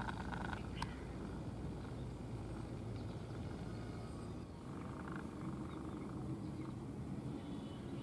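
Steady low background rumble, with a single sharp click a little under a second in.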